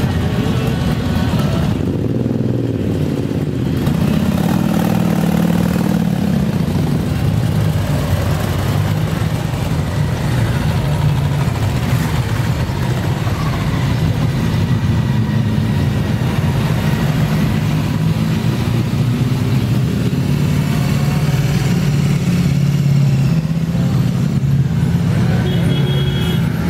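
A steady stream of motorcycles and motor trikes riding past one after another, their engines running continuously as the column files by.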